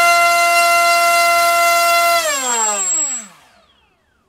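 MultiStar V-Spec 2205 2350 kV brushless racing-drone motor spinning a TGS 5x5 propeller on a 3-cell pack during a thrust test: a loud, steady high-pitched whine. A little over two seconds in the power is cut and the whine falls in pitch and dies away as the prop spins down.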